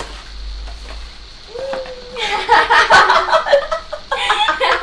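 People laughing, with a drawn-out vocal sound about one and a half seconds in. Loud, bursty laughter follows from about two seconds in.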